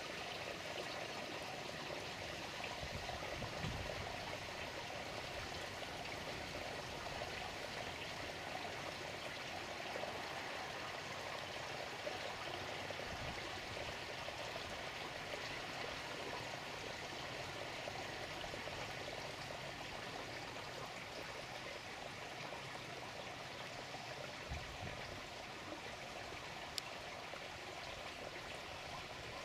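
Steady running, trickling water in a garden koi pond.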